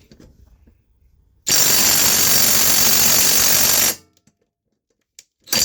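Impact wrench hammering on a rusted, stuck bolt for about two and a half seconds, then stopping abruptly, with a couple of short knocks near the end. The bolt does not break loose even after induction heating.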